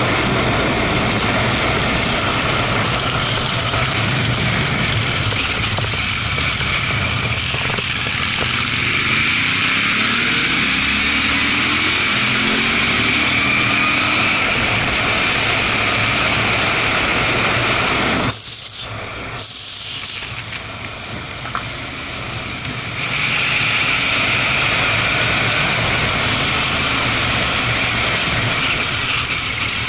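Moto Guzzi V-twin motorcycle engine pulling up a mountain road, heavy wind rush on the action camera's microphone. The engine pitch sweeps up and down partway through. About two-thirds of the way in, the sound drops suddenly for a few seconds before engine and wind return.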